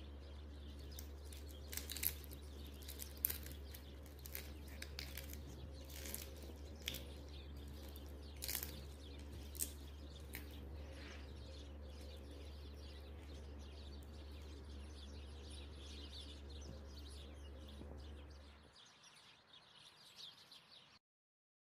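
Crisp, flaky börek pastry crackling in a few sharp clicks as a fork breaks into it, over a steady low hum and faint bird chirps. The hum cuts out near the end.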